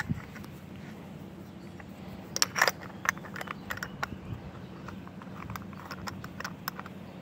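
Handling noise: scattered small clicks, knocks and scrapes, with the loudest cluster about two and a half seconds in, over a faint low steady hum.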